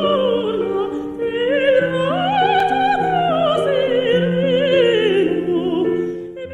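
A woman singing in operatic style with a wide vibrato over sustained instrumental accompaniment. Her voice climbs about two seconds in to a long high note, then falls away, and the music fades near the end.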